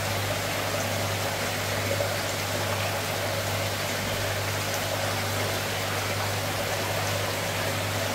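Water running and splashing steadily in koi holding tanks, with a steady low hum underneath.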